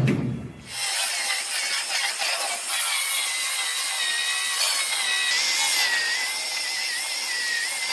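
Power tool cutting into the aluminum bedside of a Ford F150, starting about a second in and running steadily with a high whine that wavers slightly in pitch.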